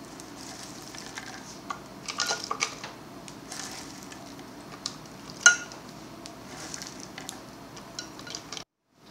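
Sliced almonds and candied fruit pieces scooped by hand off a wooden cutting board into a saucepan: dry rustling and light clicks, with one sharp click about five and a half seconds in. The sound cuts out briefly near the end.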